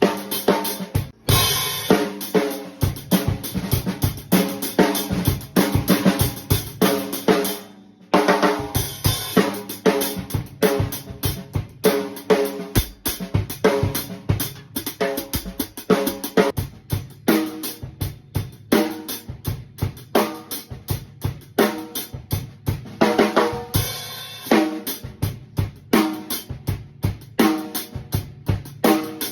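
A drum kit played in a continuous groove, the old Keplinger snare cracking over kick drum, hi-hat and cymbals, with brief breaks about a second in and near 8 seconds.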